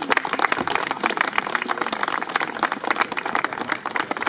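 Audience applauding: many hands clapping in a dense, irregular patter at the end of a song.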